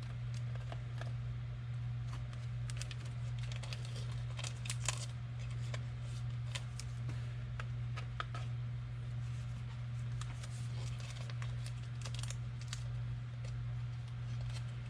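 Trading cards being handled and slid into plastic card sleeves: scattered light clicks, scrapes and crinkles over a steady low hum.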